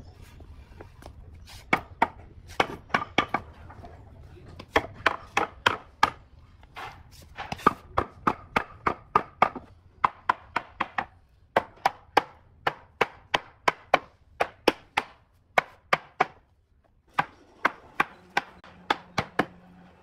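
Hammer blows on wood, knocking a wooden bed rail down into the notched top of a log leg: runs of sharp knocks, about two to three a second, broken by short pauses.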